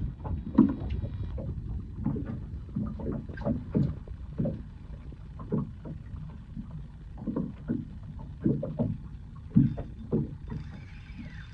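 Small waves lapping and slapping against a small boat's hull in irregular low knocks, about one or two a second, over a steady low rumble.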